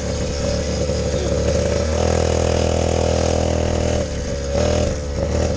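Small 50cc engine of a Chinese kids' quad bike running at a fairly steady throttle on a rough trail, easing off briefly about four seconds in and again a second later.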